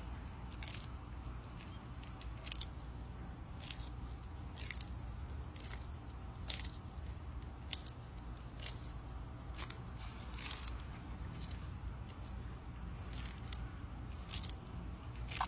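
Sulcata tortoise biting and chewing a prickly pear cactus pad: short crisp crunches about once a second.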